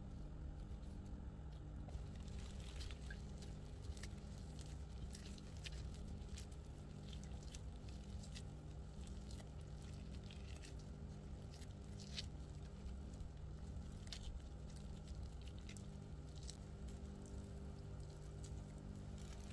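Gloved hands pulling apart cooked chicken and mixing it into rice in a pot: faint, irregular crackles and rustles of plastic gloves and food, over a low steady hum.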